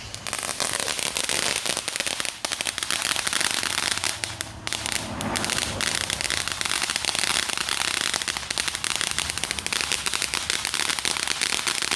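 Fireworks crackling: a rapid, dense run of many small pops with no break.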